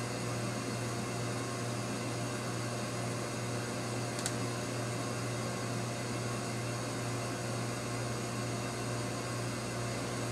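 Steady low hum over a constant hiss of machine or room noise, with a single faint click about four seconds in.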